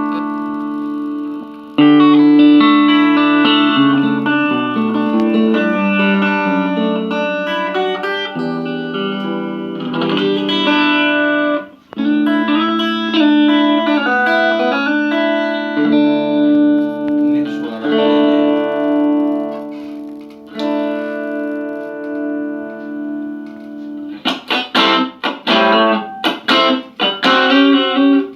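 Electric guitar played through a Belcat 15G amplifier with its built-in effect switched on: held chords and single notes ring out. Near the end the playing changes to quick, short, clipped notes.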